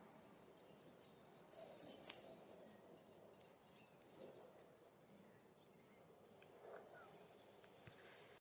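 A small bird calling briefly, a quick cluster of high chirps about two seconds in, over near silence.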